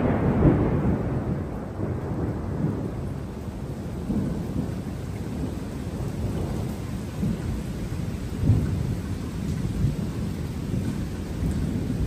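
Thunder rolling. A loud clap fades over the first couple of seconds into a low rumble that swells again several times, most strongly about eight and a half seconds in.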